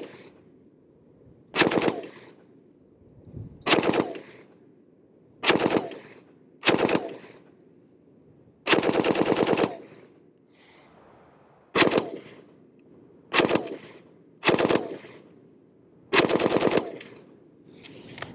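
Original Vietnam-era M60 machine gun firing 7.62 NATO in nine short bursts, most a fraction of a second, one lasting over a second near the middle, with a short echo trailing each burst.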